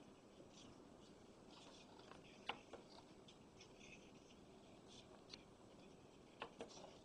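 Faint clicks of the Sony TA-F335R amplifier's front-panel input selector buttons being pressed. There is a close pair of clicks about two and a half seconds in, a single click at about five seconds and another close pair near the end, over a low hiss.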